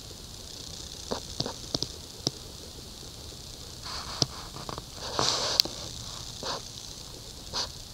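Pen working on squared notebook paper: scattered light clicks and taps, with short scratchy strokes, the longest about five seconds in.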